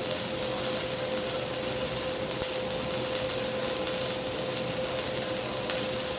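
Welding arc running steadily with a dense crackling hiss, over a steady electrical hum.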